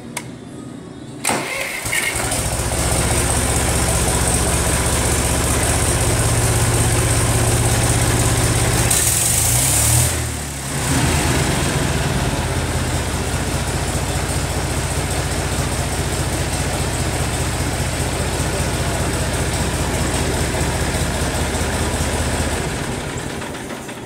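John Deere 1020 three-cylinder gas engine started about a second in and catching almost at once, then running smoothly and steadily on a newly fitted ignition switch, carburettor and distributor. About ten seconds in there is a brief hiss and the engine speed wavers and dips before settling again, and the engine sound falls away near the end.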